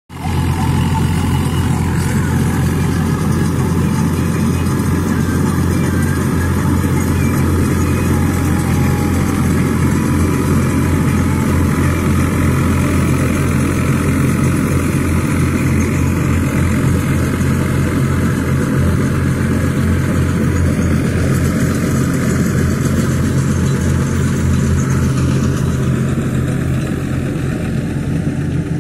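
Swaraj 744 tractor's diesel engine running steadily under load, driving a straw reaper whose cutter and blower add a dense rushing whir as chopped straw is blown into the trailer. The rushing eases a little near the end.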